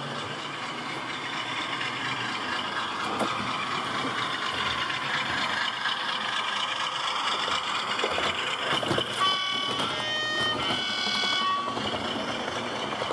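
Model Class 47 diesel locomotive running past on the layout track with a steady hum. About nine seconds in its horn sounds two held notes, the second a little over a second long.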